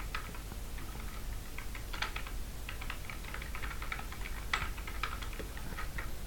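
Computer keyboard typing: a faint run of irregular key clicks, with some louder keystrokes among them.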